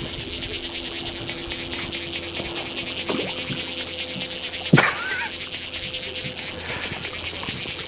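Steady rush of river current flowing past a gravel bank, with one short, sharp sound about five seconds in.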